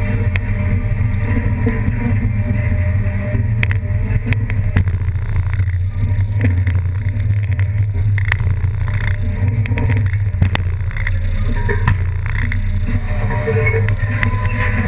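A steady low rumble like a running motor, with scattered short knocks.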